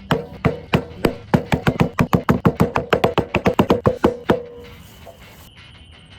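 A rapid run of about two dozen sharp knocks, each with a short ringing tone, coming quicker and stopping about four and a half seconds in.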